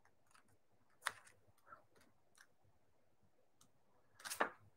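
Faint clicks in a quiet small room: one sharp click about a second in, a softer one shortly after, and a short cluster of clicks near the end.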